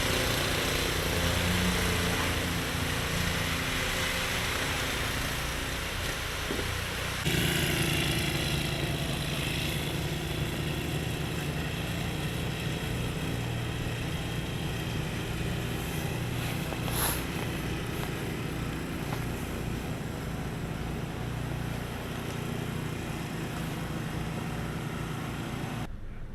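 Engine running steadily throughout. The sound changes abruptly about seven seconds in and again near the end.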